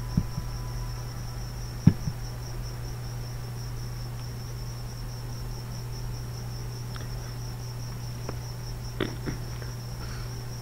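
A cricket trilling steadily in a high, evenly pulsing tone over a low steady hum, with a few sharp clicks about two seconds in and again near the end.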